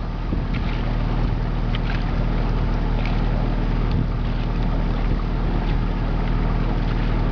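Motorboat engine running steadily with a constant low drone, water rushing along the hull.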